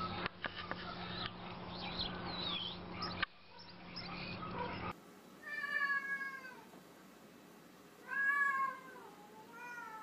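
A house cat meowing in drawn-out, arching calls three times in the second half, the middle one loudest, while squaring off with another cat. The first half holds a steady low hum with scattered clicks.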